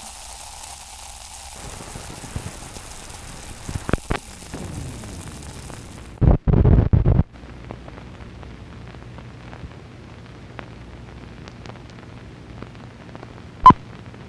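Old film soundtrack noise: steady hiss with scattered crackles and clicks, and a loud low thump lasting about a second, about six seconds in. Near the end comes one short, sharp beep, the sync pop of a film countdown leader.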